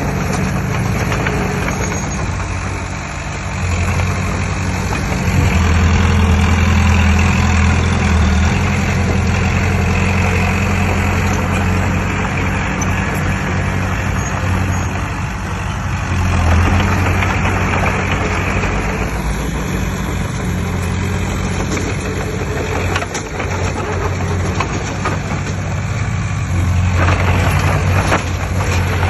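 Heavy diesel engine of earthmoving machinery running continuously, surging louder several times as it works: about six seconds in, about sixteen seconds in, and near the end.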